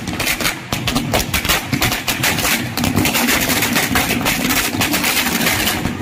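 A string of firecrackers going off in a rapid, irregular run of cracks and bangs.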